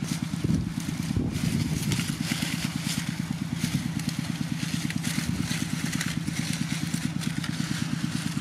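A small engine running steadily at idle, a rapid even pulsing hum, with scattered crackling over it.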